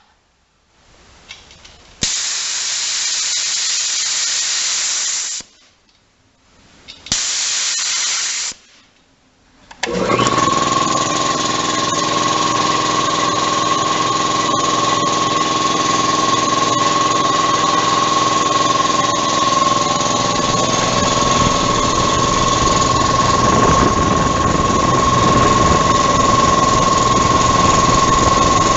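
Compressed air hissing out in two bursts, the first about three seconds long and the second about a second and a half, which lowers the tank pressure. About ten seconds in, the twin-cylinder belt-drive electric air compressor kicks on and runs steadily with a steady high tone.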